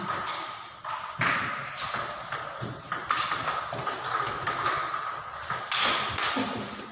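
Table tennis rally: the ball clicking off the players' paddles and bouncing on the table, a string of sharp ticks about one to two a second.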